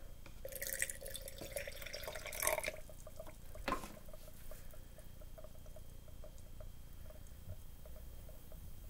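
Urine poured from a plastic cup onto baking soda in a glass mason jar, splashing for about two and a half seconds, followed by a single knock a second later as the cup is set down. Afterwards only faint small ticks.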